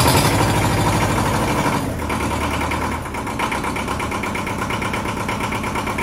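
Ford 1700 tractor's three-cylinder diesel engine running at raised throttle just after firing up on a jump start, settling to a slightly quieter, steadier run about three seconds in.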